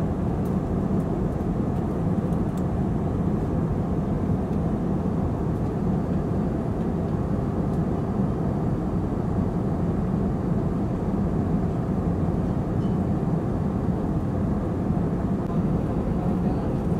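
Steady, deep rushing drone of an airliner cabin in flight: jet engine and airflow noise heard from inside the cabin.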